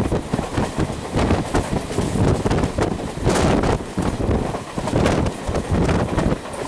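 Wind buffeting the microphone held out of a moving passenger train's window, over the running rumble of the coach on the rails. The noise comes in irregular gusts rather than a steady rhythm.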